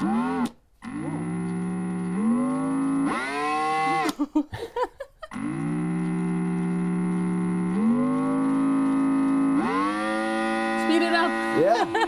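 Electric guitar pickup catching the motor of a cordless drill held against it, played through a small guitar amplifier as a buzzing electric drone. Twice the drone spins up with a rising pitch, steps higher as the motor speeds up and cuts off: the first run stops about 4 seconds in, the second near the end.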